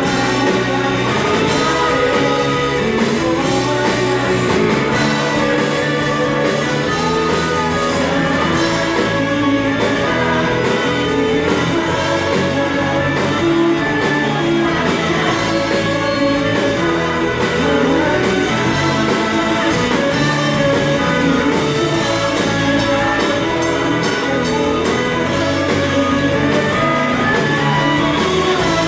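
Live rock band playing on stage, with electric guitars, drums and singing, heard loud and full from out in the audience.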